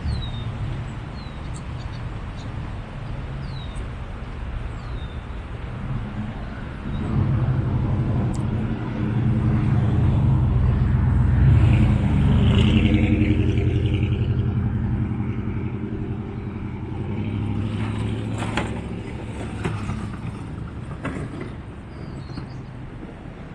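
A motor vehicle's engine passing by, growing louder about seven seconds in, loudest near the middle, then fading away. A few short high chirps come early and near the end.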